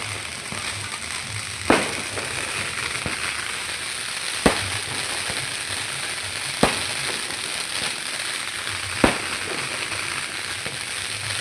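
Fireworks going off: four sharp bangs, about two to two and a half seconds apart, over a steady crackling hiss.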